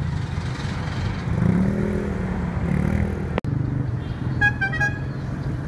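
Bus diesel engines running: one engine's pitch rises and falls as it pulls away, then a steady engine idle, with a horn tooting in a quick run of short beeps about four and a half seconds in.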